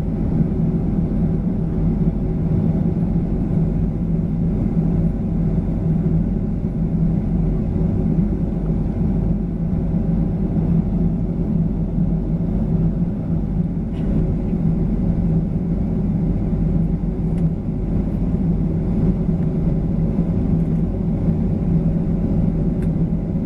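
Cabin sound of a Boeing 737-900ER's CFM56-7B jet engines running at low thrust while the airliner taxis: a steady rumble with a constant low hum.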